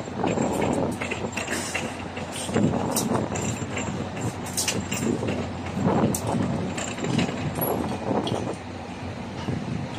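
Construction-site noise: a heavy diesel engine running steadily, with scattered short metal knocks and clanks over it.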